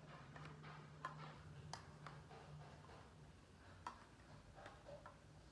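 Metal spoon stirring in a steel bowl: faint, irregular clinks and scrapes of the spoon against the bowl.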